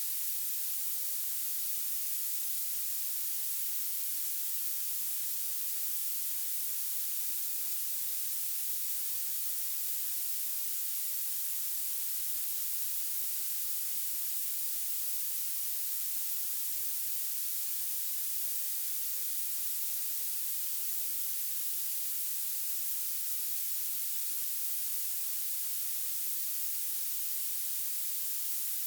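Violet noise: a steady, even hiss weighted toward the very highest pitches, with almost no bass.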